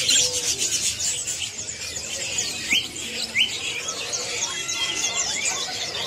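A flock of budgerigars chattering: many short chirps and quick rising squeaks overlapping without a break.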